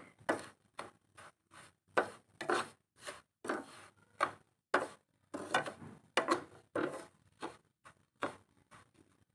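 A spoon scraping and stirring dry semolina around a pan as it roasts to a light brown, in irregular strokes about two a second that thin out near the end.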